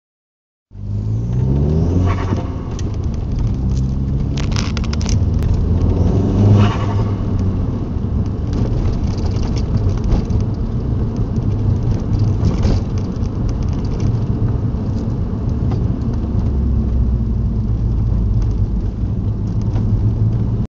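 VW Golf GTI's 1.8T turbocharged four-cylinder engine revved twice and then running steadily, with a fluttering chatter between the revs: turbo compressor surge (turbo flutter) as the throttle closes under boost.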